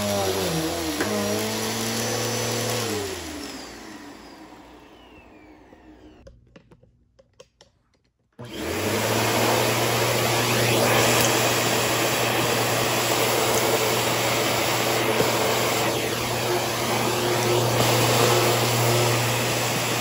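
Bissell upright vacuum cleaner running, its motor pitch dipping briefly, then switched off and winding down to near silence with a few light clicks. About eight seconds in it starts again abruptly and runs steadily, drawing through the hose and crevice tool on a hard floor.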